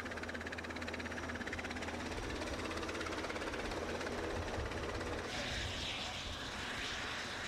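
Steady drone of aircraft engines running on an airfield, with a fast, even pulsing and a low hum underneath; about five seconds in it turns hissier with less low rumble.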